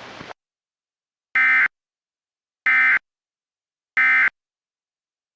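Emergency Alert System end-of-message (EOM) signal: three identical short bursts of buzzing digital data tones, each about a third of a second long and about 1.3 seconds apart, marking the end of the alert.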